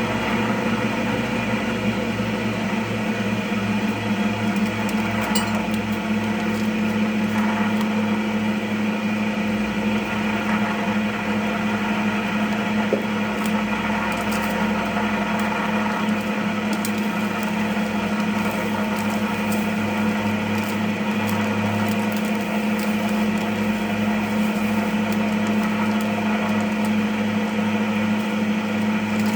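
Cast cotton candy machine running, its motor turning the spinner head slowly while the head heats up: a steady hum with a strong low tone.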